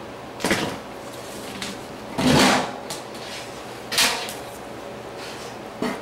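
Short metal clunks and scrapes as an HVAC blower motor is handled in its sheet-metal blower housing over the squirrel cage. There are four of them, the longest and loudest about two seconds in.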